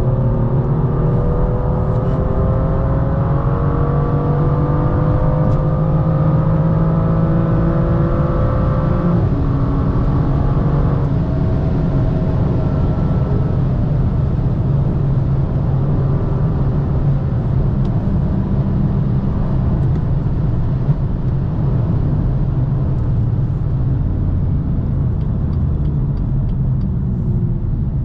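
BMW M2 F87's turbocharged straight-six pulling hard under acceleration, its pitch climbing for about nine seconds. A gear change follows, then another shortly after, and the engine runs on more steadily under a continuous road and tyre rumble.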